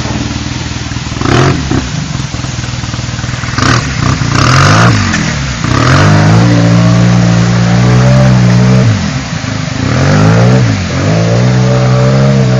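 Vehicle engine idling and then revved under load while climbing, rising in pitch and held high twice for a few seconds each time, with a dip in between. There are several brief noisy bursts in the first half.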